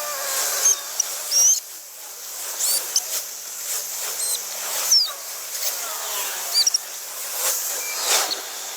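Car jack being cranked down, squeaking in short, high, irregular chirps with light metallic clicks.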